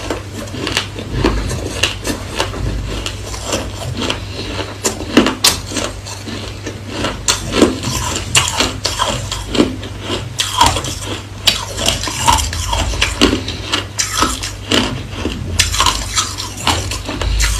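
Hard, clear crushed ice being chewed and crunched close to the microphone: a quick, irregular run of sharp crunches, several a second, over a low steady hum.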